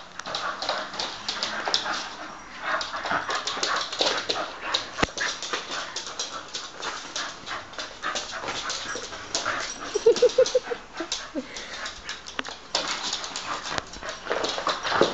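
Terrier-cross dog playing with a neoprene squid toy: a busy run of irregular scuffling, mouthing and breathing noises, with one short pitched, wavering vocal sound from the dog about ten seconds in.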